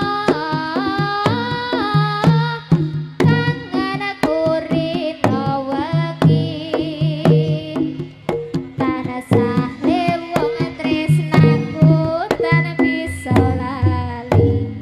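Live jaranan ensemble music: frequent drum strokes under a melody line that bends and slides between notes.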